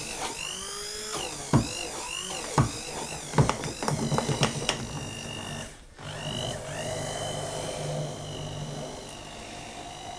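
Bamix stick blender running at low speed in a glass jar of thick sponge-cake batter, its motor whine wavering up and down as the blade is loaded, with several sharp knocks against the glass in the first few seconds. It drops out briefly about six seconds in, then runs on with a steadier hum.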